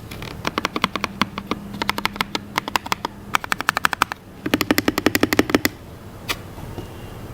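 Mechanical keyboard typing: lubed Akko CS Red linear switches in a Redragon Fizz K617, with PBT XDA keycaps and tape and foam mods. Fast runs of keystrokes, a brief pause about four seconds in, another quick run, then a single keystroke just after six seconds before the typing stops.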